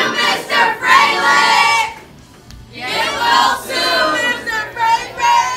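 A group of students singing together, in two phrases with a short break about two seconds in.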